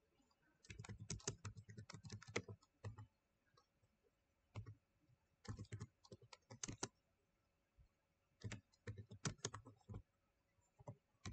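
Typing on a computer keyboard: quick runs of key clicks in four or five short bursts, with pauses between them.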